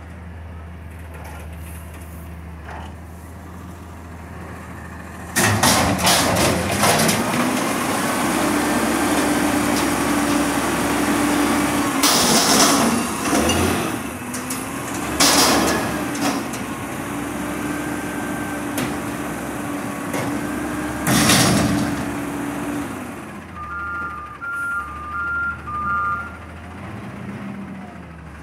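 Peterbilt 320 / McNeilus Meridian front-loader garbage truck idling, then revving up about five seconds in to drive the hydraulics. The forks lift a steel dumpster over the cab and empty it, with a steady hydraulic whine and several loud bangs of the dumpster being shaken out and knocked against the body. Near the end the engine settles and a short run of high beeps sounds.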